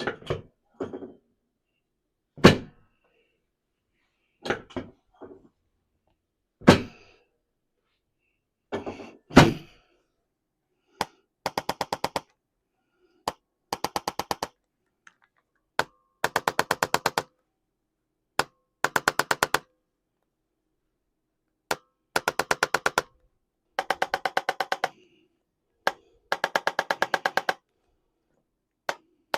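Chiropractic drop table: the raised drop piece falls with a thunk, nine or so times over the first ten seconds, the loudest sounds here. Then a handheld adjusting instrument fires in bursts of rapid clicks, about fifteen a second, each burst lasting around a second, with short pauses between.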